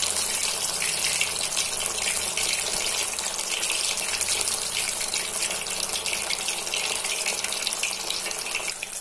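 Masala-coated katla fish steak frying in hot oil in a kadai: a steady sizzle with fine crackling as the first side cooks, before the fish is turned.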